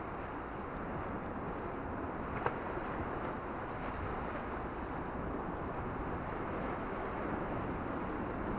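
Steady wash of sea water along the rocks mixed with wind buffeting the action camera's microphone, with one small click about two and a half seconds in.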